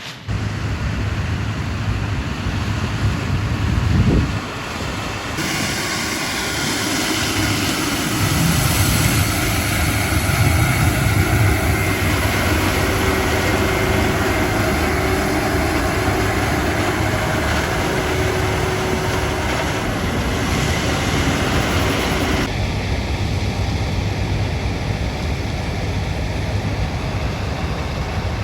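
Large vehicle's diesel engine running steadily at close range, with a low hum under a rushing noise that grows brighter about five seconds in and eases back near the end.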